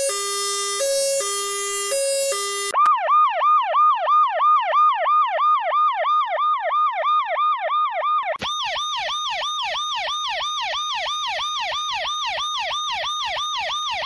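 Emergency-vehicle sirens in sequence: an old ambulance's two-tone siren alternating between a low and a high note, then from about three seconds in a fast yelp siren sweeping up and down about four times a second. About eight seconds in it changes to a fire truck's yelp siren at the same rate, brighter and with a hiss on top.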